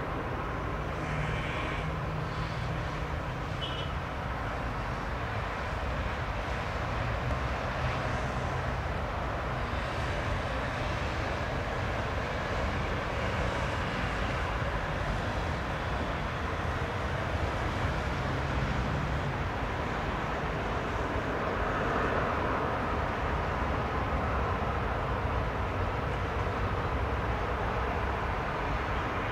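Airliner jet engines running at low taxi thrust, a steady rumble that swells slightly about twenty-two seconds in.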